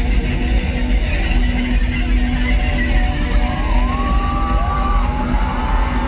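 Live band music at a concert, played loud through the sound system, with guitar over heavy bass and a steady beat of cymbal ticks about three a second.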